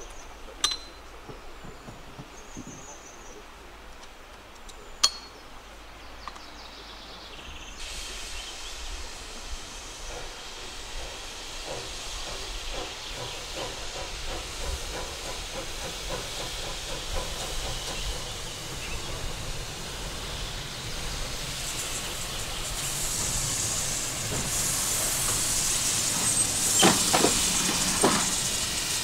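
Narrow-gauge steam locomotive approaching with its train, growing steadily louder: hissing steam with a faint regular beat. Two sharp clicks come in the first few seconds, and two sharp knocks near the end.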